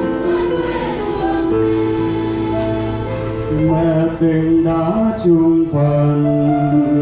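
Church choir singing a hymn, several voices in long held notes that move to a new pitch every second or so.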